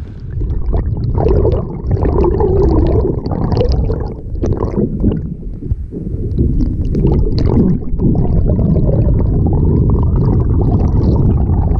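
Water gurgling and sloshing, heard muffled through an underwater camera's housing below a moving kayak's hull, with scattered small clicks and bubbles.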